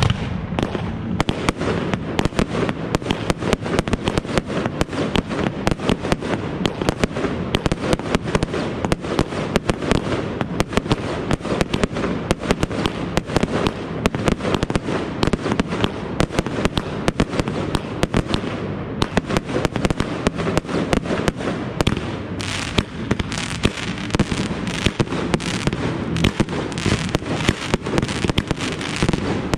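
Close-up fireworks: several ground fountains and batteries firing at once, a dense, unbroken rattle of crackles and bangs.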